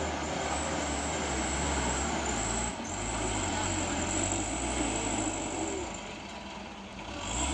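Diesel engine of a light box truck straining to climb a steep muddy slope, running steadily under heavy load. It eases off briefly about two-thirds of the way through and picks up again near the end.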